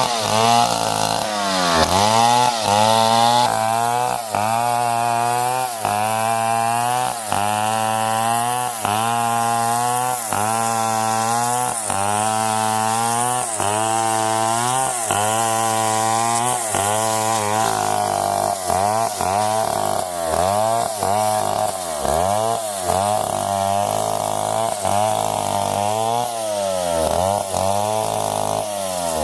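Stihl 070 chainsaw, a big two-stroke, running under load as it cuts wood, its engine pitch dipping and recovering in a steady rhythm a little more than once a second. In the last third the wavering becomes quicker and more uneven.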